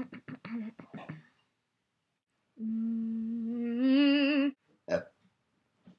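A person humming one long held note that steps up in pitch and wavers near its end. It follows a second of short, choppy vocal noises, and a single brief vocal grunt comes just before five seconds in.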